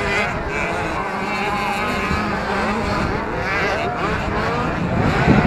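Several 65cc two-stroke motocross bikes racing. Their engine notes rise and fall over one another as the riders rev and shift, and the sound grows louder near the end.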